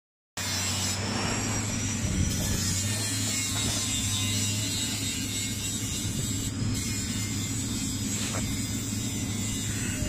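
Scrap metal baler's hydraulic power unit running with a steady low hum.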